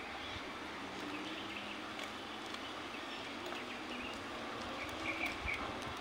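Outdoor street ambience: a steady hum of distant traffic, with a few short high chirps about five seconds in.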